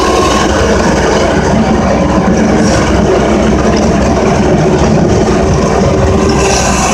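Engine of a snow-clearing loader running steadily while the machine drives across a snowy lot.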